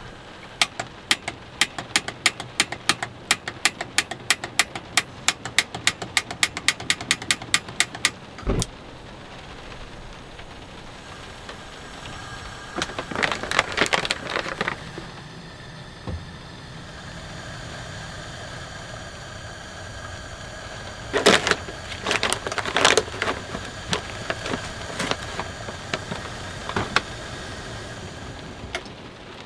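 Piezo igniter of a Fire Maple Saturn camp stove clicked over and over, about four or five clicks a second for some eight seconds, a sign of its unreliable igniter that does not light the stove every time; then a thump and later bursts of clattering as cooking gear is handled. Steady rain runs underneath.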